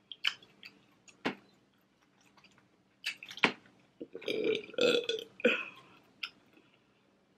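A long burp about four seconds in, lasting over a second, between a few sharp clicks of crawfish shells being handled in the bowl.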